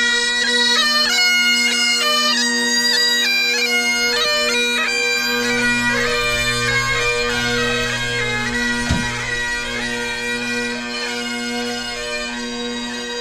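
Great Highland bagpipes played by a group of pipers: a steady drone under a changing chanter melody, growing gradually quieter. A brief thump about nine seconds in.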